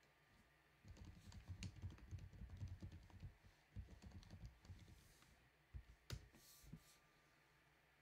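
Faint typing on a computer keyboard: a quick run of key taps from about a second in to about five seconds, then a few more separate clicks around six seconds.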